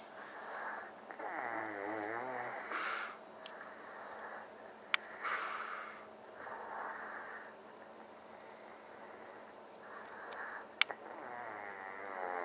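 A man snoring, snore after snore every one to two seconds, some with a wavering, rattling tone. Two sharp clicks, one about five seconds in and one about eleven seconds in.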